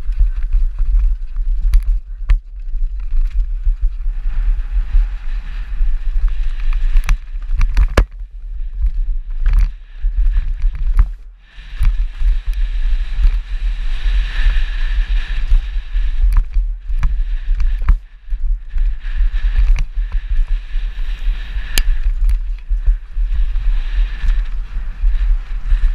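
Downhill mountain bike descending a rough dirt and rock trail, heard from a camera mounted on the bike: wind buffeting the microphone and tyres rumbling over the ground, with sharp clacks and rattles of chain and bike over bumps. There is a brief lull about eleven seconds in.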